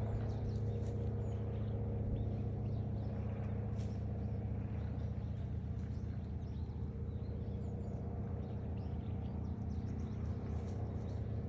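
An engine running steadily at an even pitch, with no rise or fall in speed.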